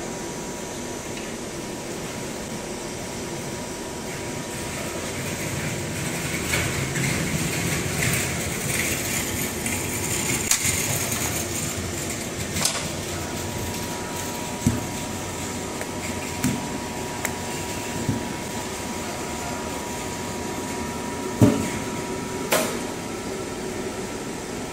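Cash register paper roll slitting and rewinding machine running with a steady hum and a thin whine. It gets somewhat louder a few seconds in, and several short knocks come in the second half.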